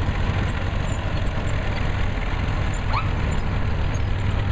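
Vintage crawler tractor engines running steadily with a low hum. A short rising whistle-like tone sounds about three seconds in.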